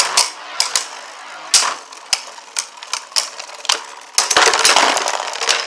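Two Beyblade Burst tops spinning and clashing in a plastic stadium: a steady spinning hiss with sharp clicks every half second or so. A louder stretch of rattling and scraping sets in about four seconds in and lasts over a second.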